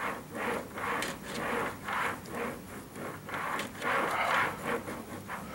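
An HO-scale model boxcar pressed down and rolled back and forth over a paper towel wetted with track-cleaning liquid on the rails, its wheels scrubbing on the towel in a steady rhythm of about two strokes a second. This scrubs built-up dirt off the metal wheels.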